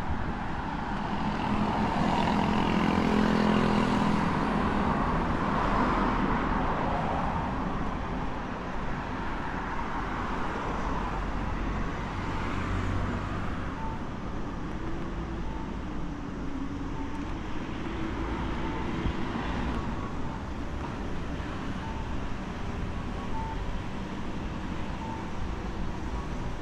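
Street traffic: a vehicle passes close in the first few seconds, then a steady hum of traffic. From about halfway, faint short beeps repeat about once a second.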